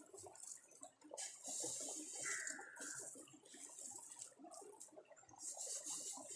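Faint hissing and rustling from a pot of tapioca beef biryani as grated coconut and curry leaves are scattered over it and it is worked. The hiss comes and goes in patches, with one short, slightly falling whistle-like tone about two seconds in.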